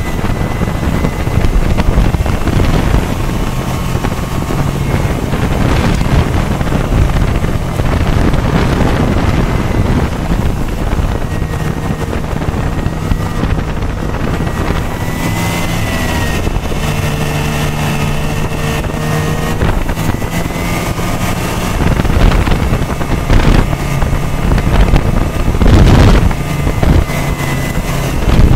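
Snowmobile engine running under way, its pitch shifting up and down a little through the middle, with wind buffeting the microphone.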